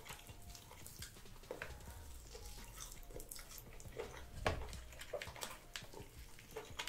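Shellfish shell being picked apart by hand: scattered small cracks and clicks with wet, squishy handling of the meat, a little louder about four and a half seconds in.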